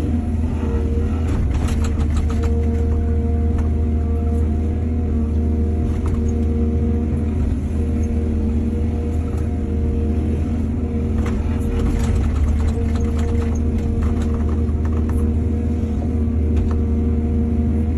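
Excavator's diesel engine running steadily under load, a deep drone with a steady hum above it. Bursts of clanks and rattles come about a second in and again about eleven seconds in.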